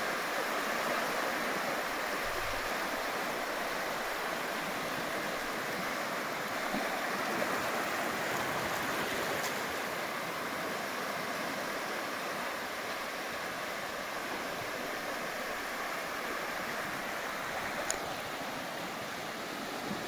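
Sea surf washing onto a sandy beach: a steady rush of water with no distinct single crash, and a small click about three-quarters of the way through.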